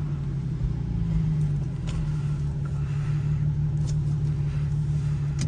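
Infiniti G37's VQ-series 3.7-litre V6 with a muffler-delete exhaust idling in the cabin, a steady low drone with no revving.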